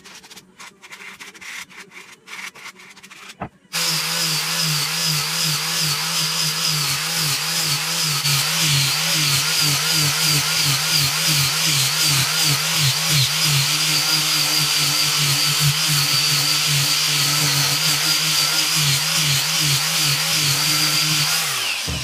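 Quick hand scraping of a small wood slice with a metal blade, then, about four seconds in, an angle grinder with a sanding disc cuts in, sanding the face of a large log slice. It runs steadily with a low hum and a high whine and winds down near the end.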